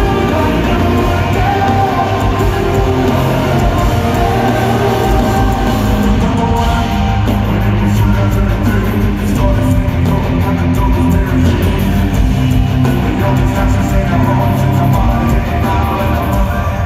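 Rock band playing loudly live: electric guitars and drums, amplified through an arena PA.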